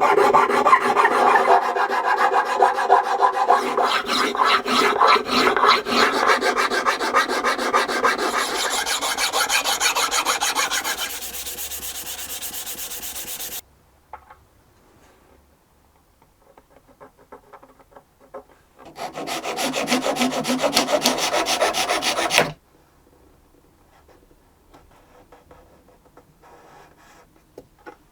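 A hand tool filing and rubbing on a violin's wooden fingerboard in rapid repeated strokes, as the fingerboard is dressed after the neck is glued on. The strokes run for about thirteen seconds and stop abruptly, then resume for a shorter run of about three seconds near the middle.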